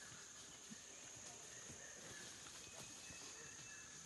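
Faint forest ambience: a steady high-pitched insect drone, with a few soft scattered ticks and rustles.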